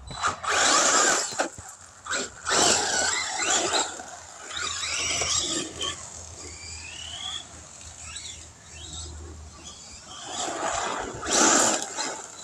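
Arrma Typhon 3S RC buggy's brushless motor revving in short throttle bursts as it is driven, with a brief rising whine about six seconds in and loud bursts near the start, around three seconds and near the end.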